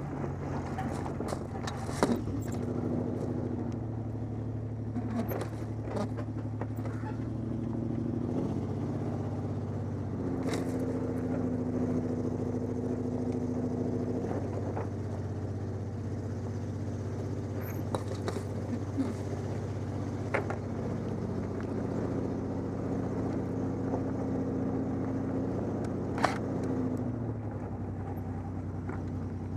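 Truck engine running under way, its note stepping up and down several times as the truck changes speed, with occasional sharp clicks and knocks.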